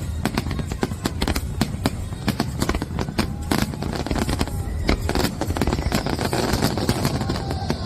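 Fireworks going off: a dense run of sharp pops and crackles over a low rumble, with a steady high hiss coming in about six seconds in.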